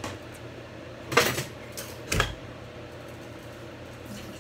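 Two sharp clatters of kitchenware being handled on a counter, about a second apart, the second with a dull low bump, plus a few lighter ticks. A steady low hum runs underneath.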